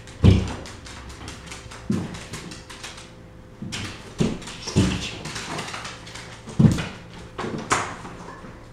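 A cat and a dog leaping and landing on a bare hardwood floor while chasing a laser dot: about six dull thumps of paws landing, with claws clicking and scrabbling on the boards between them.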